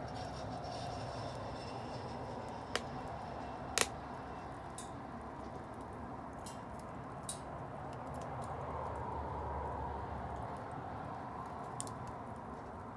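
Wood bonfire burning: a steady low rush of flame with sharp pops and crackles every second or so, the loudest about four seconds in.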